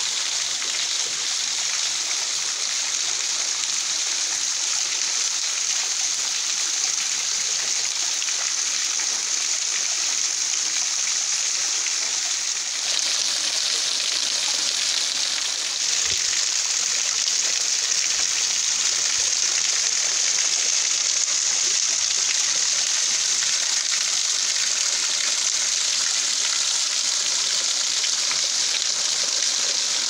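Low-flow waterfall: thin streams of water falling free from a cliff and spattering onto rocks below, a steady splashing hiss without roar. The flow is low because the river is nearly dry. The hiss grows a little louder about thirteen seconds in and again about sixteen seconds in.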